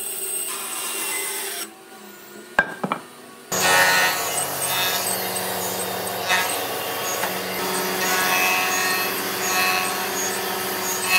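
A band saw cutting through a thick wood slab, which stops after a second or two; a couple of sharp knocks follow. Then a jointer (surface planer) starts cutting, its spinning cutterhead shaving the face of a hardwood block as it is pushed across, a loud steady planing noise to the end.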